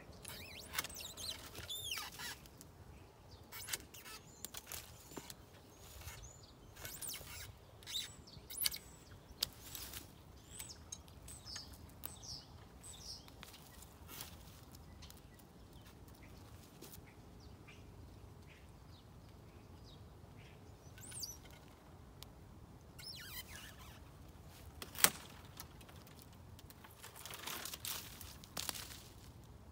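Long-handled loppers cutting small branches of a dormant fruit tree: scattered clicks and snaps of the blades and twigs, with one much sharper snap near the end. Small birds chirp now and then.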